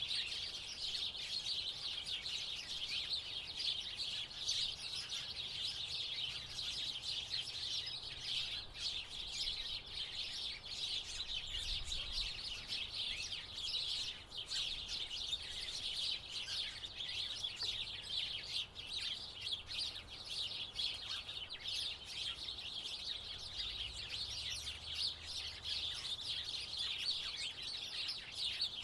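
A flock of house sparrows chirping continuously, many overlapping short chirps forming a steady chatter.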